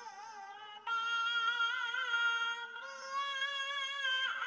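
Cat-like synthetic singing voice holding long notes of a sholawat melody. A quieter note opens, a louder held note starts about a second in, and the pitch steps up near three seconds before the note breaks off with a short downward slide just before the end.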